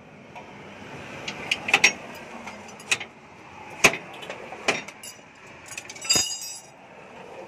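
Irregular sharp metallic clinks and knocks of hand tools against a truck's steel leaf spring and suspension hardware while the spring is being fitted, about seven of them, with a short metallic rattle and ring about six seconds in.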